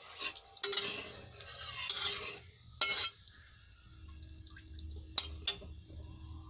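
A spatula stirring melting Dalda ghee in a metal kadhai, scraping across the pan for a couple of seconds, then knocking against it once about three seconds in and twice near five seconds.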